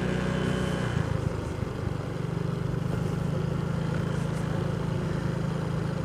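Small motorcycle engine running steadily while the bike is ridden along, its note briefly dipping and breaking up about a second in before it settles back to an even run.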